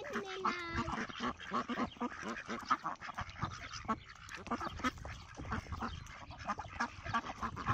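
Several ducks calling, with a few quacks in the first second, then a busy patter of short clicks and rustles throughout.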